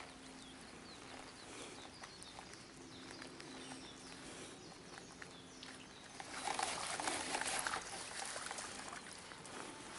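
Faint birdsong and a low steady hum, then about six seconds in a louder splashing noise for two or three seconds as a topwater lure is twitched across the water surface.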